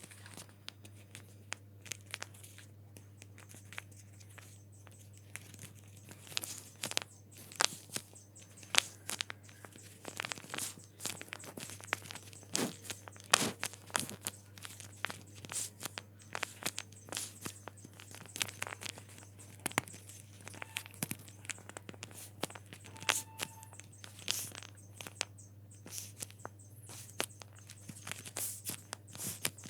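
Paper being handled for a craft: irregular crinkling, rustling and sharp little clicks, spaced unevenly throughout, over a steady low hum.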